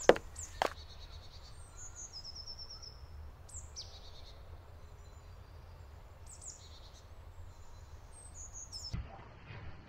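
Woodland birds singing: scattered high chirps, short down-slurred calls and a brief fast trill, over a steady low background hum. Two sharp knocks in the first second are the loudest sounds.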